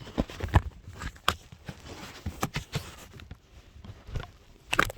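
Irregular knocks, taps and rustles: handling noise close to the microphone, about a dozen sharp strikes spread unevenly, the loudest about half a second in.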